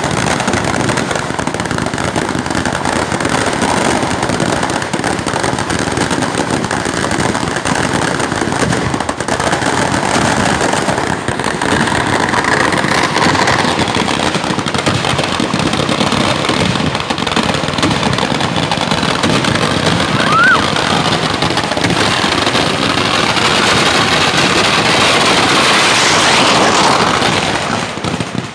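A long chain of firecrackers bursting in a dense, continuous rapid-fire crackle, loud throughout, stopping abruptly near the end.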